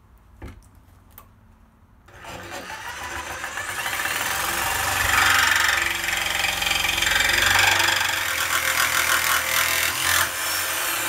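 Corded jigsaw with a Bosch metal-cutting blade starting up about two seconds in and sawing through quarter-inch 6061 aluminium plate, a loud, dense rattling buzz of the blade chopping through the metal that keeps up to the end. Before it starts there are only a few faint clicks.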